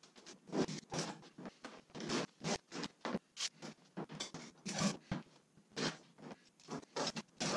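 Clear packing tape being pulled hard off a handheld tape dispenser and stuck down across a wooden kayak's hull-and-deck seam, in an irregular run of short ripping pulls, about two a second.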